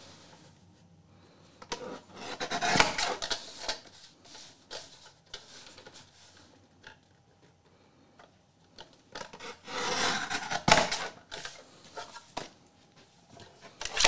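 Paper trimmer cutting the overhanging edge off a card: the blade is drawn along the rail in two longer cuts, one about two seconds in and one about ten seconds in, with light clicks and paper handling between them.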